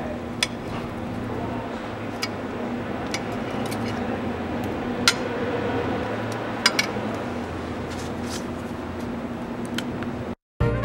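Metal tongs clinking against a glass baking dish: a handful of sharp, separate clicks spread over several seconds, over a steady low hum. The sound cuts out briefly near the end.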